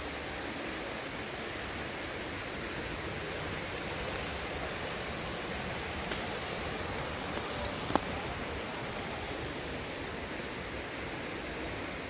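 Steady rushing of a river and waterfall. A few faint clicks and one sharp click come about eight seconds in.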